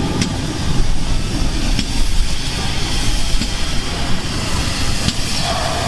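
GWR 2800-class 2-8-0 heavy freight steam locomotive No. 2857 running past tender-first: a steady heavy rumble with faint regular clicks about every second and a half.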